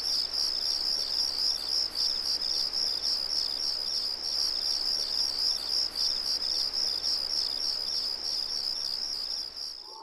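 Crickets chirping steadily in an even, pulsing rhythm as a film ambience track; it cuts off abruptly near the end.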